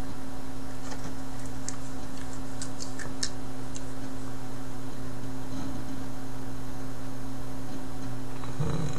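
Steady electrical hum, with a few light, irregular clicks in the first few seconds.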